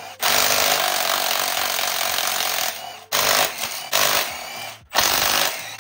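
Cordless impact wrench hammering out the flywheel bolts: one long run of about two and a half seconds, then three shorter bursts.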